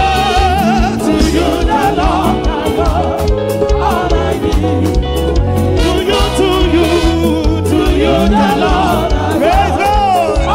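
Live gospel band playing electric guitar, keyboard and drums with a steady beat, while a woman leads the singing into a microphone with a wavering, held melody.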